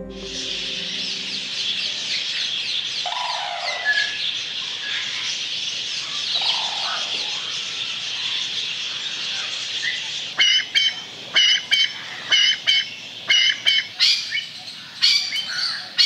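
Morning chorus of many birds chirping and twittering together. From about ten seconds in, a loud, sharp call repeats about twice a second over the chorus.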